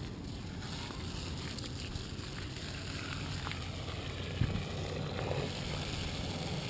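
Steady hiss of a garden hose spraying water onto plants, under a low rumble of wind and handling on the microphone. One short knock about four and a half seconds in.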